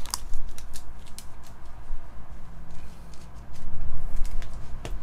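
Glossy Topps Finest trading cards handled by hand: a run of small clicks and snaps as cards are moved and slid against each other, several in the first second and a few more near the end, over a faint low hum.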